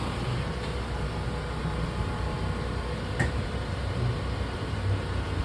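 Slide-out mechanism of a 2018 Forest River Impression RV running as a room extends, a steady mechanical drone. There is a single sharp click about three seconds in.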